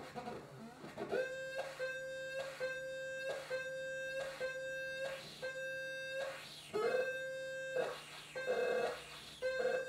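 Electronic synth tone made from a CRT monitor's green, blue and horizontal/vertical sync signals run through an audio mixer and fed back into the monitor: a steady buzzing pitch with overtones that starts about a second in and is broken by a regular pulse about every three-quarters of a second.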